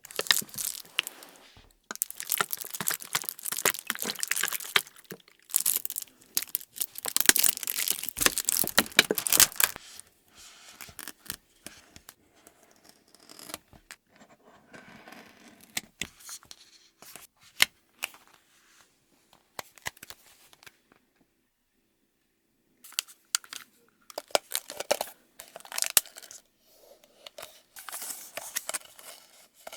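Nano tape (clear sticky gel tape) being pulled and peeled, a crackly ripping sound in several long stretches, loudest in the first third and again near the end, with quieter pauses between.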